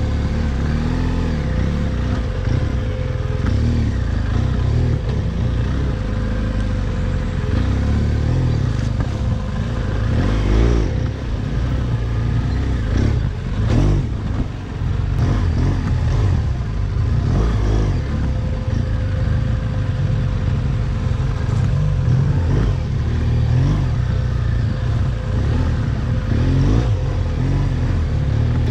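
BMW R1200GSA boxer-twin motorcycle engine running while ridden, its revs rising and falling several times in the middle, under a heavy low rumble.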